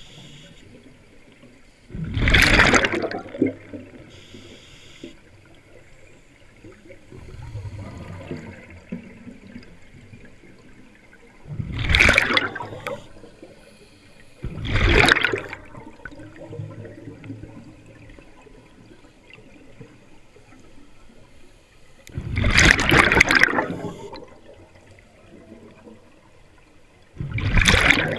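Scuba diver breathing through a regulator, recorded underwater: five bursts of exhaled bubbles, each about a second long and spaced several seconds apart, with quieter water noise between them.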